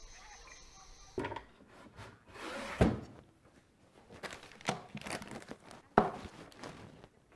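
Wooden knocks and thumps of drawers and cupboard doors being opened and shut in a small room, as someone rummages through them; the loudest thumps come about three and six seconds in.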